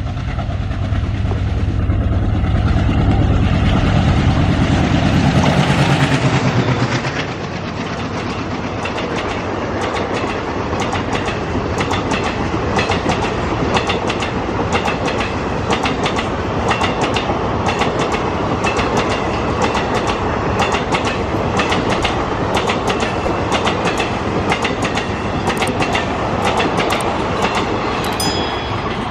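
Diesel train passing close by. Its diesel engine runs loudly for the first several seconds and fades about seven seconds in. Then the wheels of the coaches rumble and clack rhythmically over the rail joints.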